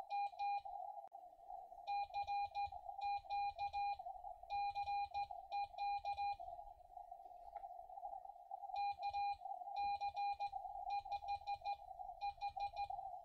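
CW sidetone from a Xiegu G106 transceiver's speaker: a single steady tone keyed on and off in Morse code dits and dahs, sending a CQ call and call sign with a paddle. The tone sits over a constant hiss of receiver noise through the narrow CW filter, and the keying pauses for about two seconds midway.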